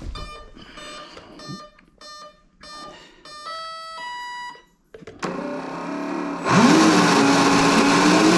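A string of short electronic beeps and then a few longer tones from the RC boat's electronics as it is powered up and armed. The boat's electric motor then spins the drive shaft and a freshly fitted CNC-balanced brass propeller out of the water, rising quickly in pitch about six and a half seconds in to a steady whirring run.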